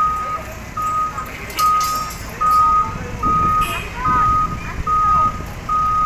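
Reversing alarm on a Hyundai backhoe loader, a single high beep repeating evenly about every 0.8 s over the low rumble of its diesel engine, sounding as the machine backs up.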